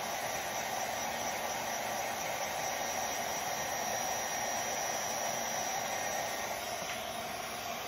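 Handheld craft heat gun blowing steadily as it melts copper embossing powder, a constant airy rush with a faint high whine.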